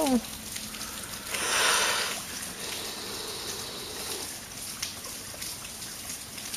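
Steady trickling of water over a waterlogged tunnel floor, with one brief louder rushing noise about a second and a half in.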